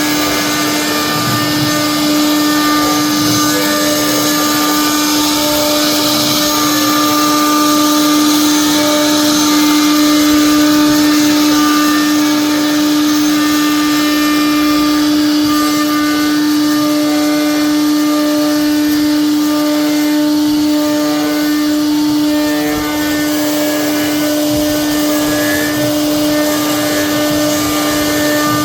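CNC wood-carving router running steadily: a constant spindle whine over the noise of the bit cutting wood.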